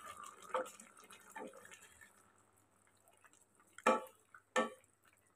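A spatula stirring a milky vegetable curry simmering in a non-stick kadai, with soft wet stirring and bubbling, a few light taps, and two sharp knocks of the spatula against the pan about four seconds in, roughly half a second apart.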